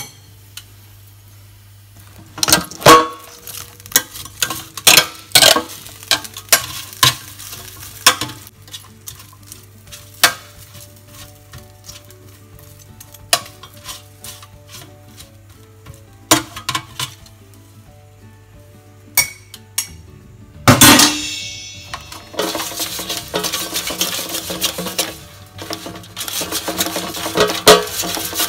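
Metal spoon clinking and scraping against a nonstick air fryer basket as partly cooked potato slices are stirred, in irregular sharp clinks. About two-thirds of the way through comes one louder clatter, followed by a steady hiss.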